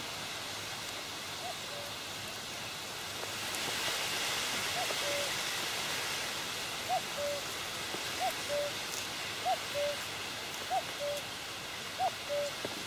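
A bird repeats a two-note hooting call, a higher note then a lower one, about once every 1.3 s, over a steady outdoor hiss of wind and water. The calls come in faintly at first and grow clearer partway through.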